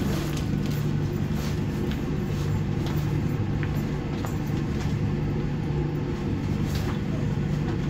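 Steady low hum of the ship's machinery, with scattered crinkling rustles of an aluminized fire proximity suit as its trousers are pulled on.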